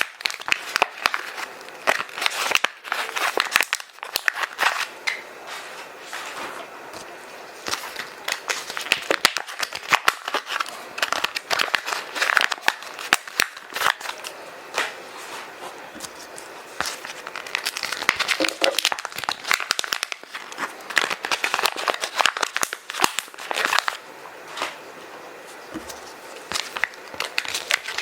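Crumpled kraft paper and plastic bags being stuffed into a zip bag: continuous crinkling and rustling, full of sharp crackles.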